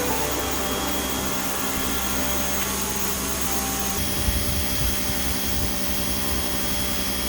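Sun Joe SPX 3000 electric pressure washer running and spraying a concrete patio: a steady hiss of water over a constant motor hum, changing slightly in tone about four seconds in.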